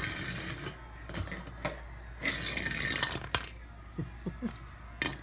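Light clicks and knocks with a short scraping clatter about two seconds in: a small plastic toy horse and its little board knocking and sliding on a hard tile floor.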